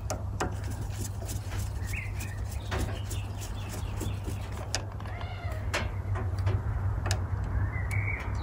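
Small clicks and scrapes of a screwdriver loosening the screw in the centre of a Porsche 911 SC distributor, over a steady low hum. A few short high-pitched squeaks or cries break in, about two seconds in, near the middle and near the end.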